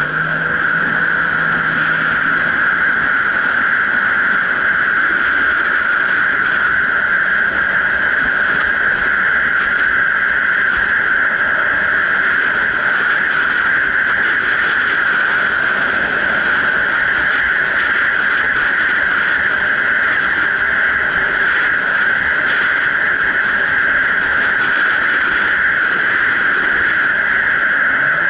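Jet ski engine running steadily under way, a constant high-pitched drone that holds the same pitch throughout.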